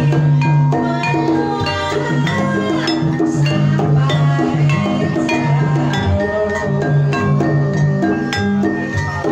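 Banyumasan-style Javanese gamelan music accompanying a kuda kepang trance dance: struck metallophone keys ringing in a repeating pattern over drumming.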